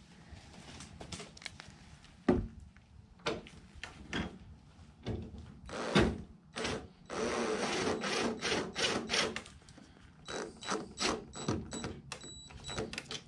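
DeWalt cordless impact driver running in headlight mounting bolts in a few short runs, the longest a few seconds after the start, with a steady whine in the later spells. Clicks and knocks of the tool and bolts being handled come before the runs.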